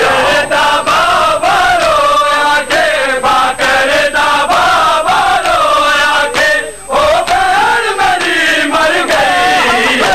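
Men chanting a Punjabi noha, a mourning lament, over a steady rhythm of hands slapping on chests in matam. The chant breaks off briefly about two-thirds of the way through.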